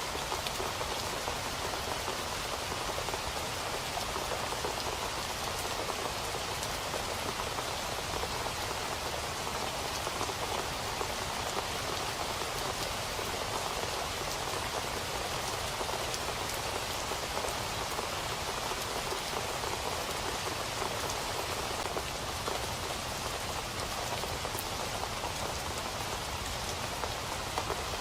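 Steady rain falling on a surface, a constant even hiss with fine scattered drop patter.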